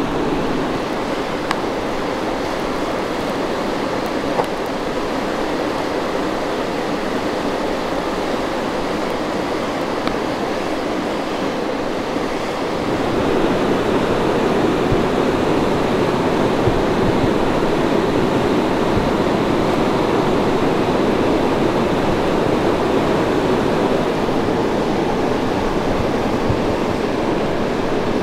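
A steady rushing noise that grows a little louder about halfway through.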